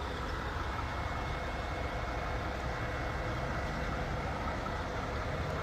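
Semi truck's diesel engine idling steadily, a constant low drone with street background noise.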